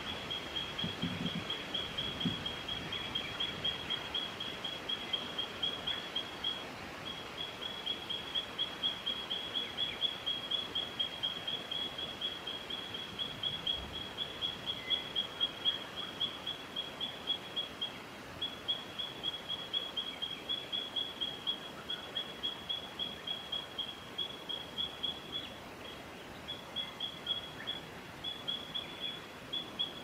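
High chirps, about four a second, all at one steady pitch, with a few brief pauses.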